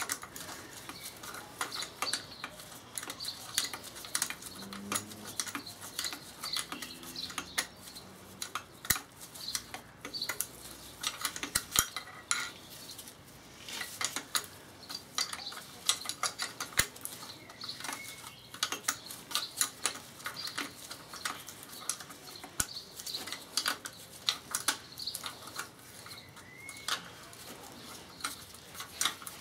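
Hand ratchet clicking in short runs, with metal clinks of the tool against the nuts, as the 11 mm nuts on a VW Beetle gearbox casing are done up.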